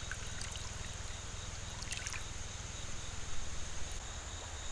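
Shallow river water running and lapping steadily at the bank, with a few faint clicks about halfway through.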